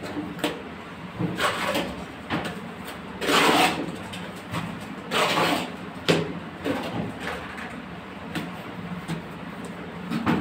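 Hand trowel scraping and scooping wet cement mortar in a mortar pan: several short scrapes, the loudest about three seconds in, and a sharp knock about six seconds in.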